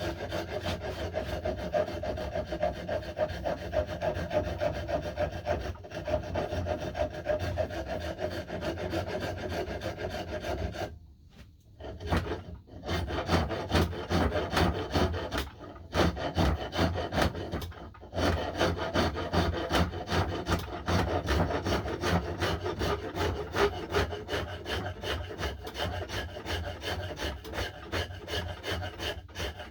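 Quick, regular rasping strokes of a hand tool abrading the wooden axe handle as the knob is shaped down, with a few brief pauses near the middle.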